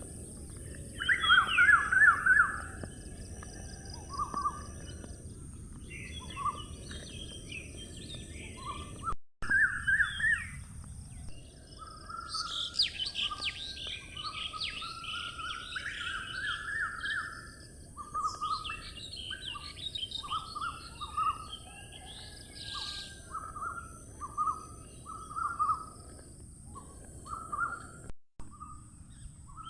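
Several wild birds chirping and singing: many short repeated chirps mixed with busier, higher trills, over a steady high hiss and a low outdoor rumble. The sound cuts out for an instant twice.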